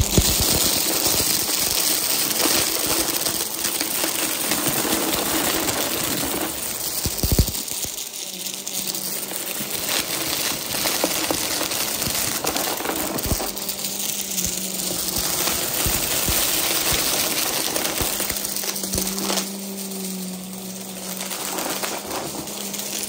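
Upright vacuum cleaner running on carpet, sucking up small hard debris such as wooden letter tiles, beads and plastic pieces, which clatter and rattle as they are drawn in over the steady hum of the motor.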